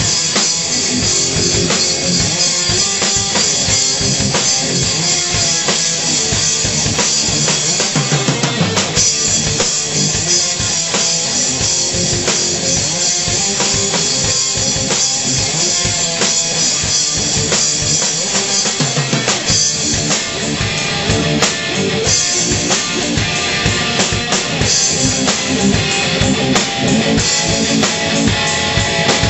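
Drum kit and a distorted Gibson electric guitar through an amp, playing rock together. The drums keep up a steady beat of cymbal and drum hits under the guitar's chords.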